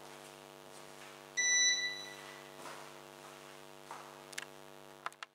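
A single electronic beep, clear and loudest about a second and a half in, dying away within a second, over a steady electrical hum. A few short clicks follow near the end.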